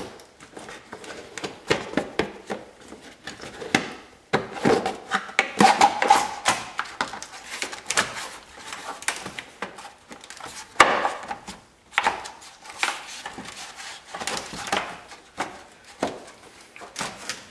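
Hard plastic battery cover being worked into place over a car battery: irregular clicks, knocks and scraping of plastic against the battery case and trim.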